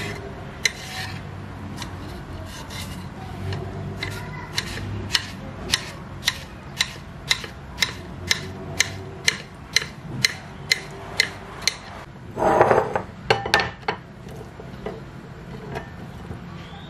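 A kitchen knife slicing a cucumber on a cutting board, the blade knocking against the board about twice a second. A short, louder scraping sound comes near the end.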